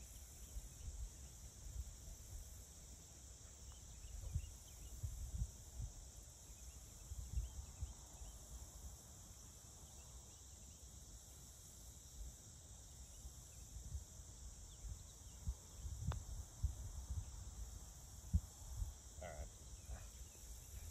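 A single sharp click about three-quarters of the way through: a putter striking a golf ball on a green. Underneath, a steady high insect chorus and low wind rumble on the microphone.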